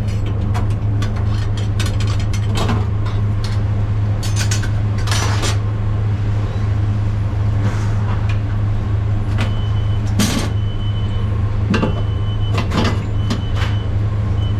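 Steady low machinery hum with scattered knocks and clatter, and two short hissing rushes about five and ten seconds in.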